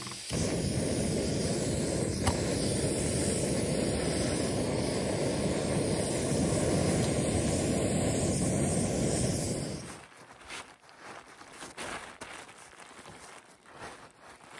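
Backpacking canister stove lighting just after the start and burning with a loud, steady hiss, with a single click about two seconds in. The hiss cuts off abruptly after about ten seconds and gives way to quieter crinkling rustles of tent fabric being handled.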